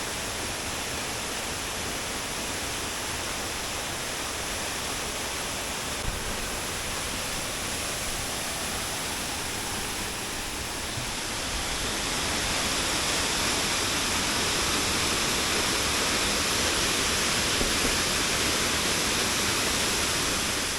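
Waterfall in good flow: water pouring and splashing as a steady rushing noise, which grows a little louder about halfway through.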